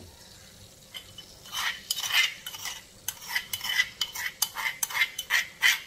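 A spoon scraping and knocking against a small bowl while crushed candlenuts are tipped out of it into a wok. The clicks and scrapes start about a second and a half in and come in a quick irregular run, several a second.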